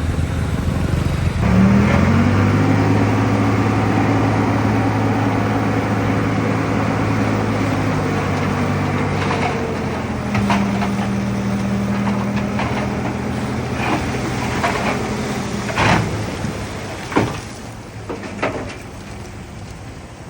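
Heavy diesel engine of earthmoving machinery revving up about a second and a half in and running hard at steady pitch, then easing off. Several sharp metallic knocks follow near the end.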